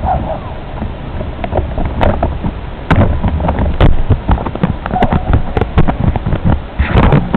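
Wind rumbling on a small onboard camera microphone, with irregular knocks and clicks scattered through it and a louder rush near the end.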